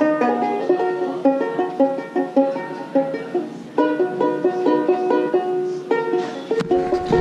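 Ukulele being played: a quick run of plucked notes and chords, with a low thump near the end.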